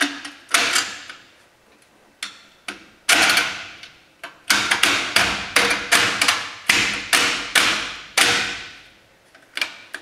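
Stainless steel trim ring being knocked into place on a steel rally wheel: sharp metallic knocks, each ringing briefly. They come in short runs of several a second, fastest through the middle, with pauses between.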